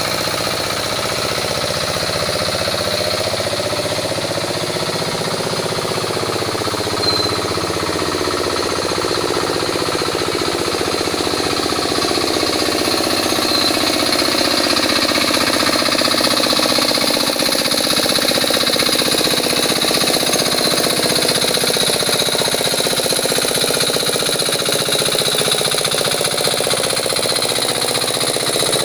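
Hand tractor engine running steadily as the machine works through flooded paddy mud. It chugs on without pause, its pitch drifting a little up and down as the load changes.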